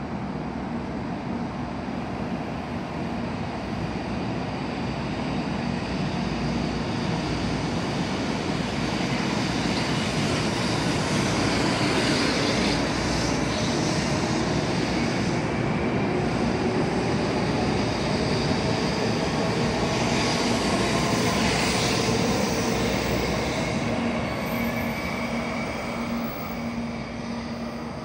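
Kyushu Shinkansen N700-series train pulling out and accelerating away. Its motors whine upward in pitch over a growing rumble of wheels and air, loudest as the cars pass, then fading as it leaves.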